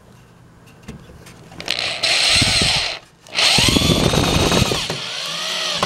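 Cordless drill driving screws into pallet wood in two runs with a short pause between, the motor's pitch rising and falling as each screw is driven.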